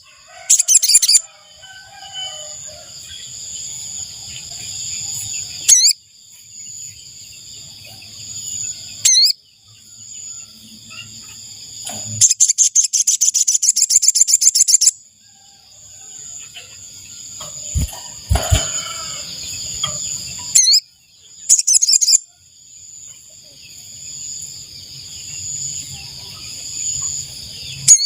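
Sogon (sogok ontong) bird calling: short bursts of sharp, rapid notes, the longest a fast run of about three seconds around the middle, with a few single quick sweeping notes between. A steady high insect-like drone runs underneath.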